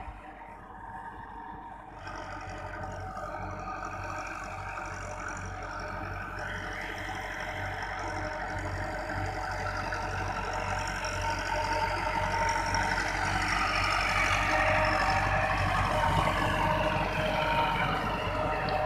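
Massey Ferguson 385 tractor's diesel engine running steadily under load as its rotavator churns through flooded, muddy ground. The sound grows steadily louder as the tractor draws nearer.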